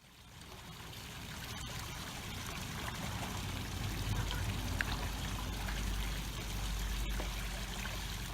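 Steady rush of running water that fades in over the first second or so, with a low rumble underneath.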